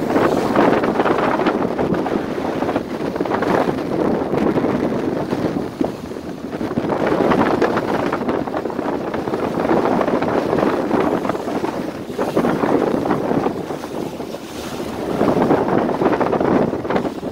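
Wind buffeting the microphone over the rush of water past the hull of a boat running at speed through open sea. The noise swells and eases in surges every few seconds.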